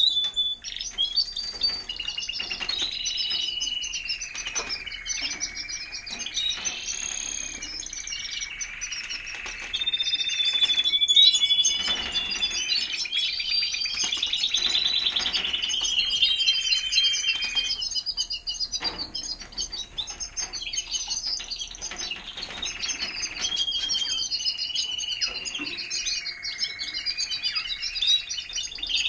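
Timbrado español canaries singing in long, continuous phrases of rolling trills and held, gliding notes, easing off for a few seconds about two-thirds of the way through.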